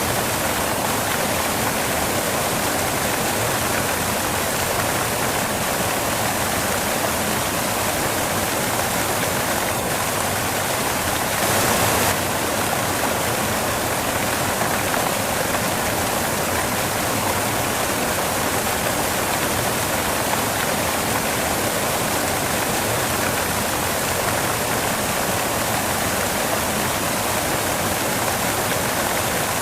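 Steady white noise: an even rushing hiss with no rhythm or tone, briefly a little louder about twelve seconds in.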